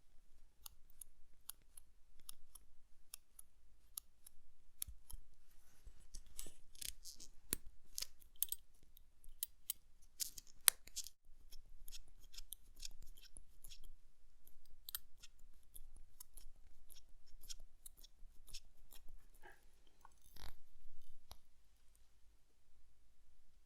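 Small, sharp, irregular clicks and taps of metal watchmaker's tools, such as tweezers, handling parts of a watch movement during assembly, with a slightly louder knock near the end.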